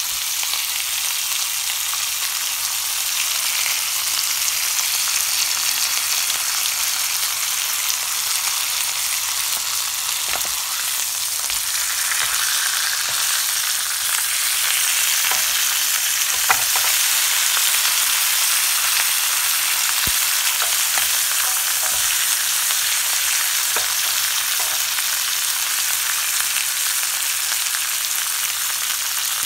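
Marinated pork chops sizzling in a ridged grill pan: a steady high frying hiss. A few light clicks come in the middle stretch as the chops are turned, the sharpest about halfway through.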